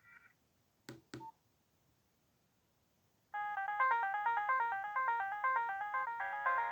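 Nokia 1680 classic ringtones through the phone's small loudspeaker: one melody breaks off right at the start, two short clicks follow about a second in, and about three seconds in a new polyphonic ringtone melody starts in quick stepping notes, with a fuller second layer joining near the end.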